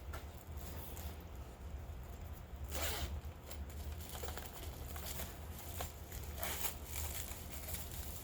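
Hands handling and crinkling product packaging, a series of short scratchy rustles, the loudest about three seconds in, over a steady low hum.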